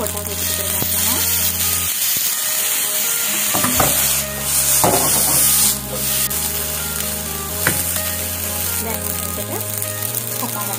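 Vegetable fried rice with a splash of soy sauce sizzling in a hot nonstick wok as it is stirred and tossed over a gas flame. The sizzle is loudest for a second or two about four seconds in.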